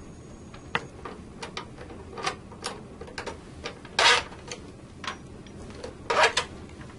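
Irregular light clicks and ticks of a Phillips screwdriver working the front-cover screws out of an Eaton NRX power circuit breaker, with a louder knock about four seconds in and a quick run of clicks near the end.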